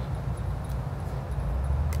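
A pickleball paddle strikes the ball with one sharp crack near the end and a fainter hit about a second earlier, over a low steady rumble.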